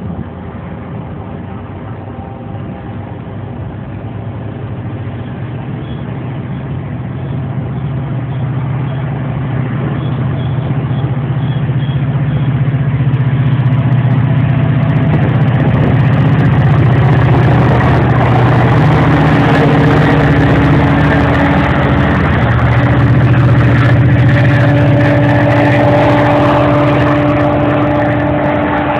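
GO Transit bilevel commuter train passing with its diesel locomotive pushing at the rear, the engine drone growing louder as the locomotive comes by, with a steady higher whine joining in after about twenty seconds.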